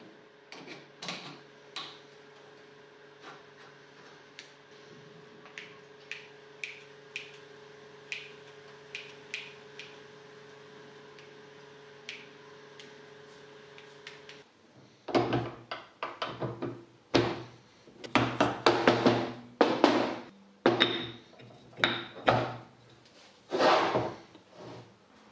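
Light metallic clicks of pliers and small steel parts on a starter motor's drive gear and shaft, over a steady low hum that stops about 14 seconds in. From about 15 seconds on, a run of much louder knocks and clatter as the metal parts are handled on the bench.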